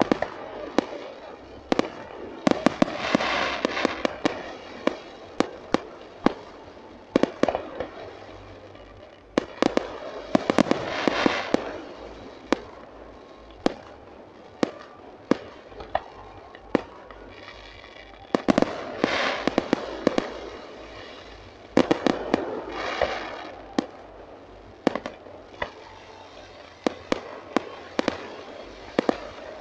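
Aerial fireworks display: a long run of sharp bangs from shells bursting, irregularly spaced, with several longer spells of crackling between them.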